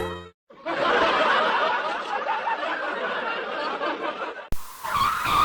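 Cartoon laughter edited as a sound variation: many giggles layered over one another in a dense chorus. It cuts off abruptly about four and a half seconds in, and a different clip with a held high tone begins.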